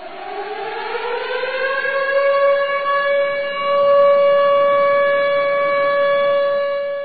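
Civil defence siren winding up from a lower pitch and then holding one steady tone, easing off near the end. It is the 10 November remembrance siren that calls the country to stand in silence for Atatürk.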